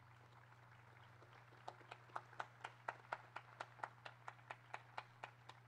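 Sparse applause from a few people after a song: distinct claps at about four a second, starting about a second and a half in, over a steady low hum.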